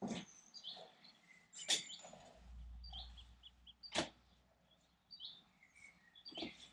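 A few sharp clicks and knocks from hand work on a lathe chuck at the bench, spaced a second or two apart. Small birds chirp throughout, and a faint low hum starts a couple of seconds in.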